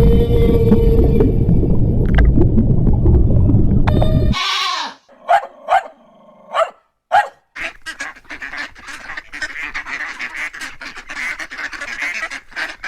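A loud, dense low rumbling noise that cuts off abruptly after about four seconds. Honking bird calls follow: a falling call, a few single honks, then many overlapping honks, as from a flock.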